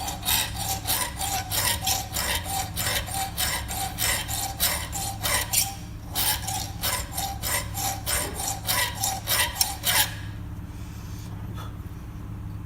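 Hand file rasping back and forth on the welded-up square end of a Stihl 91R trimmer's inner drive shaft, about two to three strokes a second, filing the worn end back to a square. The strokes pause briefly about six seconds in and stop about ten seconds in.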